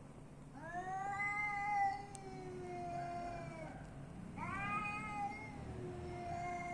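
Street cat yowling: long, drawn-out calls, the first lasting about three seconds, then further overlapping calls from about four seconds in.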